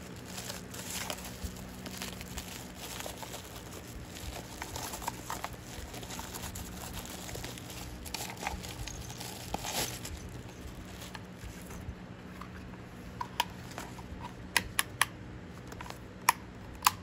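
Loose packing material crumpling and rustling for about ten seconds as the fan is unpacked. After a short lull comes a run of sharp, separate clicks as the fan's speed-control (choke) box is handled and its knob turned.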